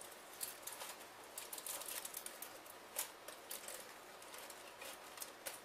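Metal tongs clicking and scraping inside a slow cooker's crock while gripping foil-wrapped potatoes, with crinkling aluminium foil. A run of irregular light clicks and rustles, one sharper click about three seconds in.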